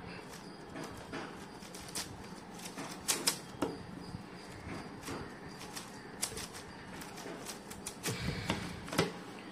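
A 5x5 plastic speed cube being turned by hand: irregular clicking and clacking of its layers as they turn, a few sharper clacks about three seconds in and near the end.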